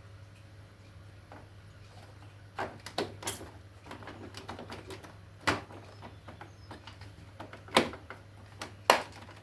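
Sharp plastic clicks and knocks from an Epson L3150 inkjet printer's casing and waste-pad tray as a new waste ink pad is slotted in by hand. About six separate knocks, spread out, with the loudest near the middle and near the end.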